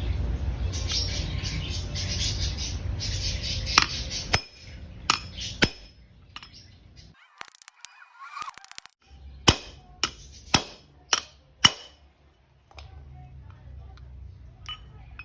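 Hammer blows on steel, driving a new idler pulley bearing into the pulley bore through an old bearing used as a drift: sharp metallic knocks, several single strikes and then a quick run of five about two a second.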